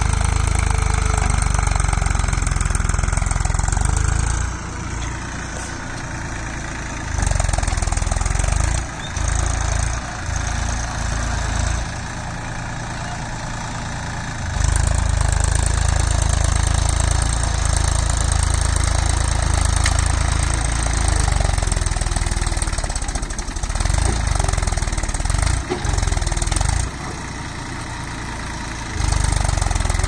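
Massey Ferguson tractor's diesel engine running; its sound drops away and comes back several times.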